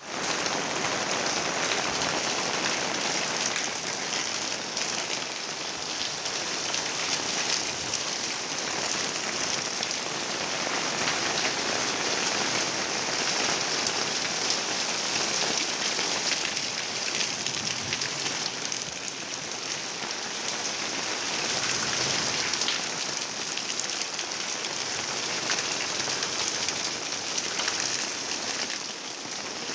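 Steady rain falling, a dense hiss of drops pattering on surfaces with fine individual drop ticks.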